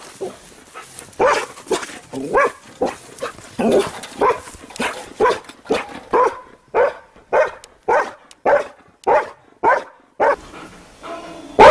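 A dog barking over and over in a steady run, about one and a half barks a second, until a pause near the end.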